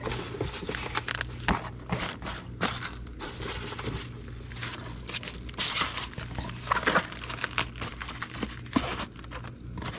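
Packing peanuts rustling and squeaking as they are handled and pressed into a cardboard shipping box, with many short crinkles and clicks.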